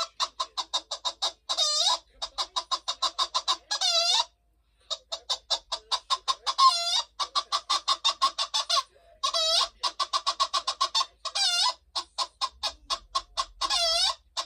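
Hen cackling: runs of rapid short clucks, about eight a second, each run ending in a longer drawn-out squawk, repeating every two to three seconds with a brief pause about four seconds in.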